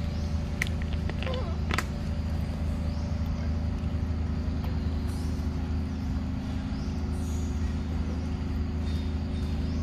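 A steady low mechanical hum, like an engine or motor running, with a few sharp clicks in the first two seconds.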